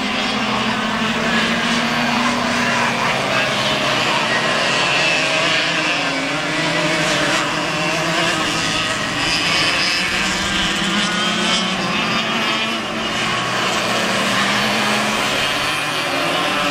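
Engines of several racing karts running together as the pack laps the circuit, their overlapping pitches rising and falling as the karts accelerate and lift off through the corners.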